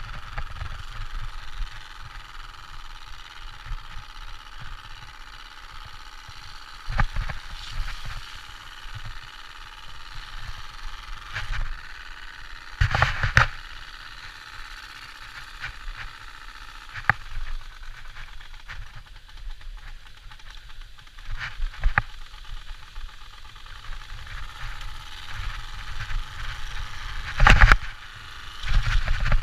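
Card in a fake motorcycle exhaust on a bicycle buzzing against the turning spokes as the bike is ridden, a steady motorbike-like engine drone. Several sharp knocks and rattles break in, the loudest about thirteen seconds in and near the end.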